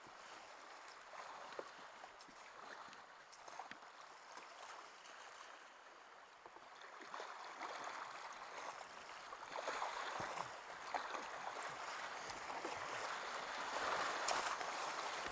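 Whitewater rushing and foaming around a kayak running a river rapid, with short splashes from the paddle and hull. The water noise grows louder about halfway through.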